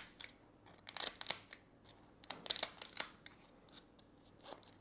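Kitchen scissors snipping and crunching through the shell of a steamed mud crab, in short clusters of sharp snips: about a second in, again around two and a half seconds, and once more near the end.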